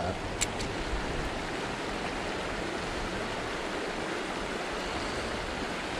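Steady rushing of a small creek running over a shallow riffle. There is a single light click about half a second in.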